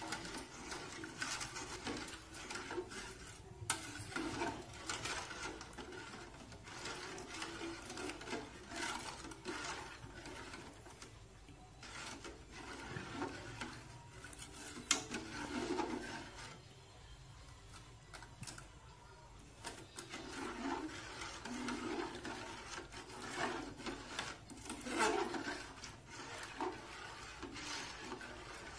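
Metal spoon stirring liquid chocolate agar pudding mix in an aluminium saucepan, scraping and clicking unevenly against the bottom and sides of the pan, with a short quieter spell a little past the middle. The mix is kept moving over medium heat so it does not form lumps.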